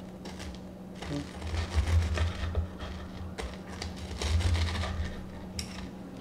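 Knife sawing through a crispy breaded pork cutlet on a wooden cutting board: the crust crackles and crunches in two bouts, about a second and a half in and again about four seconds in, with dull knocks of the blade on the board. A steady low hum runs underneath.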